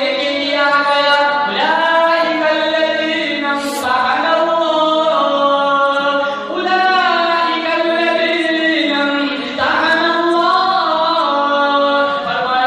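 A nasheed sung a cappella: a lead voice holding long, ornamented notes that glide up and down, with other voices layered beneath it.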